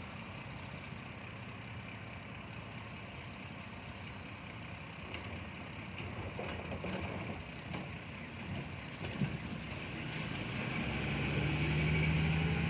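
Garbage truck engine running, growing louder with a deeper engine note in the last few seconds as the truck pulls off.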